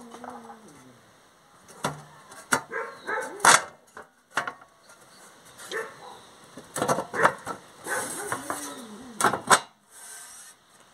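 Sheet-metal mold panels knocking and clanking as a side piece is fitted onto its bolts by hand: a series of sharp, irregular knocks, the loudest about three and a half seconds in, with another cluster of knocks near the end.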